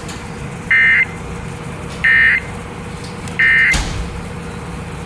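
Emergency Alert System end-of-message signal received over a radio broadcast: three short bursts of buzzy digital SAME data tone, each about a third of a second long and about a second and a half apart, over steady radio hiss and a faint hum. A sharp click follows just after the third burst.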